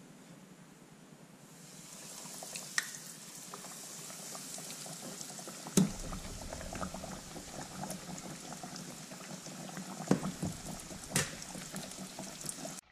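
Battered triggerfish fillet frying in hot oil in a stainless steel pot: the oil starts sizzling and bubbling about a second and a half in and keeps up a steady hiss. A few sharp metallic knocks of tongs against the pot, the loudest about halfway.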